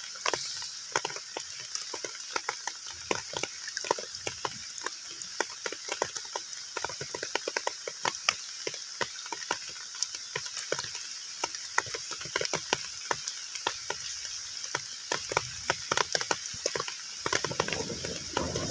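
Heavy rain falling on a pond's surface: a steady hiss thick with countless sharp, separate splashes and patters of drops hitting the water.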